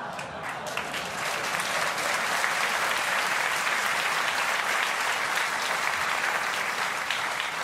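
Theatre audience applauding a joke, many hands clapping together; the clapping swells about a second in and then holds steady.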